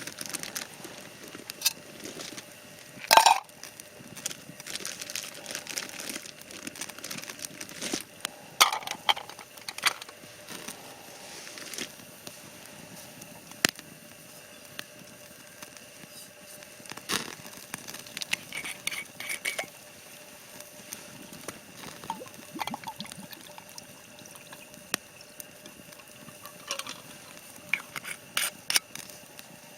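Camp cookware being handled: scattered knocks and clinks, the loudest about three seconds in, over a faint steady hum.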